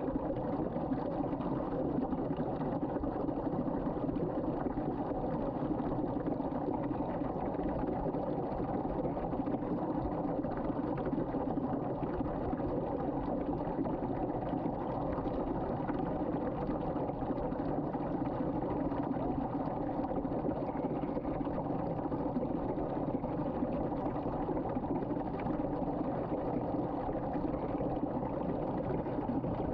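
Water swirling in a vortex down a sink drain: a steady rush of draining water that holds even throughout.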